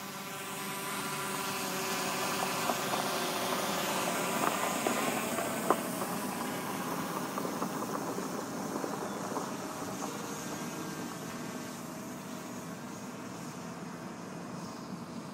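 Quadcopter drone's propellers and motors whining steadily as it climbs away, the hum slowly fading with height. A couple of sharp clicks come around the middle.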